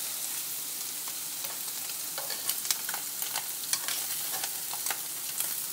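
Marinated chicken thighs sizzling on an electric grill plate, a steady hiss with sharp crackles and clicks scattered through it, while metal tongs prise the stuck pieces off the grate and move them.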